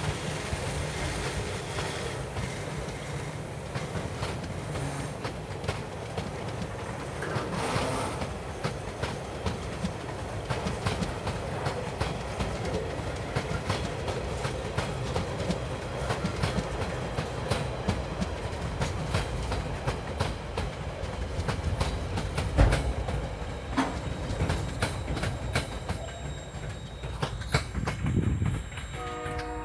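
TasRail freight train of empty log wagons and container wagons rolling slowly past with its brakes applied, the wheels rumbling and clacking over the rail joints, with one heavier knock about two-thirds of the way through.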